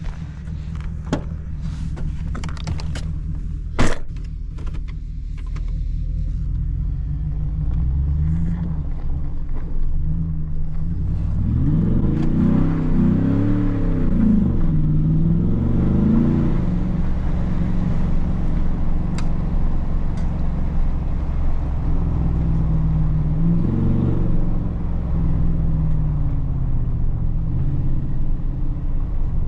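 2014 Ford Raptor SVT's 6.2-litre V8 driving, its engine note rising and falling as the truck accelerates and backs off, hardest about twelve to seventeen seconds in and again near twenty-four seconds. A few clicks in the first seconds, with a sharp knock about four seconds in.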